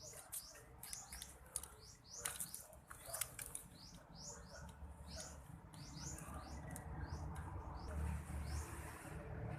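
A small bird chirping over and over, short high rising chirps a few times a second, with a few sharp clicks in the first few seconds and a low rumble building toward the end.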